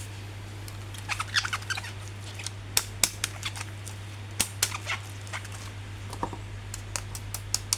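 Plastic toy packaging and figures being handled: irregular sharp clicks and crinkles, coming quicker near the end, over a steady low hum.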